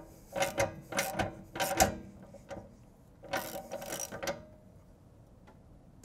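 Socket ratchet clicking in short strokes as it tightens a new anode rod into an RV water heater tank. There are three quick bursts of clicks in the first two seconds and a longer one about three and a half seconds in, then it stops.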